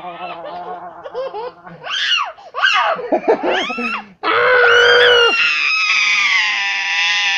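Toddler laughing and squealing while being tickled: short high rising-and-falling squeals, then about four seconds in a long, loud shriek of laughter held to the end.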